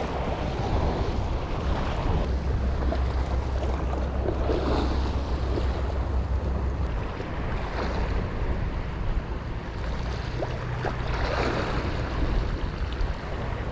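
Seawater washing against a breakwater, with wind on the microphone, over a low steady drone that shifts slightly higher about two-thirds of the way through.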